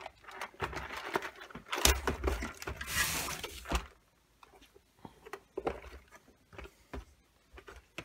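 Small plastic parts-organizer box being handled while searching for a spade connector: clicks and knocks of the plastic lid and box with small metal parts rattling inside. Busiest in the first four seconds, then scattered light clicks.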